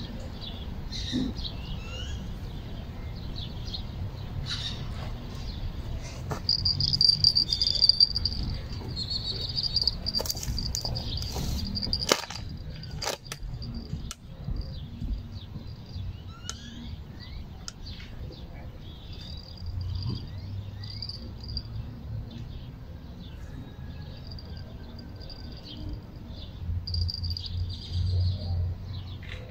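Outdoor ambience of birds chirping and an insect buzzing in high spells that come and go, over a low steady rumble. A few sharp clicks sound near the middle.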